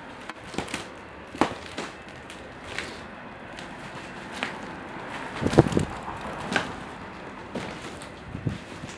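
Footsteps crunching and knocking over debris of scattered paper and burnt wood, irregular steps roughly a second apart, with one louder knock about halfway through.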